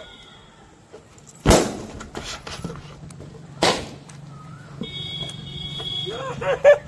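Two rubber balloons bursting about two seconds apart, each a sharp bang with a short echo. Near the end comes a brief run of short rising-and-falling calls.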